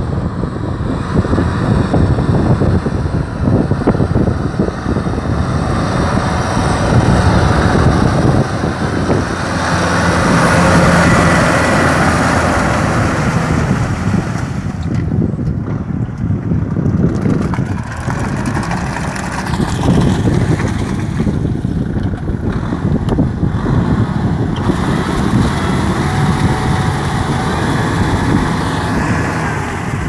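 Kubota M6040 tractor's diesel engine running steadily under load as the tractor works through paddy mud.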